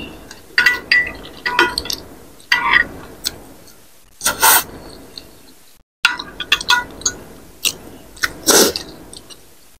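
Metal spoon and fork clinking and scraping against a glass bowl of curry broth, with wet eating sounds; two louder, longer wet mouth noises come about four and a half and eight and a half seconds in.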